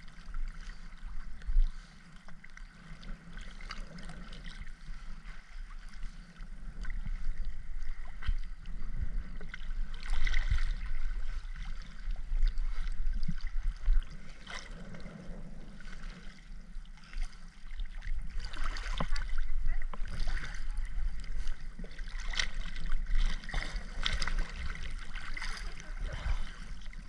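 Underwater bubbling and gurgling from a scuba diver's exhaled bubbles, swelling and fading every few seconds.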